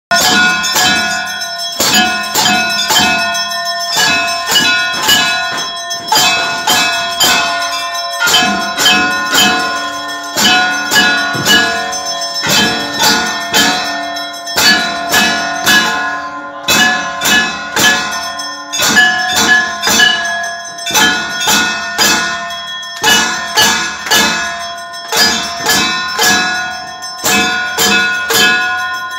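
Temple bells rung continuously in a steady, fast rhythm of about two to three strikes a second, each strike ringing on and overlapping the next.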